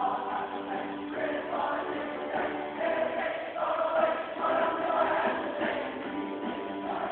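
Large student choir singing a song together, with sustained notes that change every second or so, over instrumental accompaniment.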